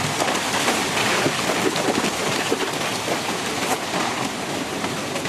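Loud, steady water noise, a dense hiss full of small crackles, such as heavy rain or torrential water gives.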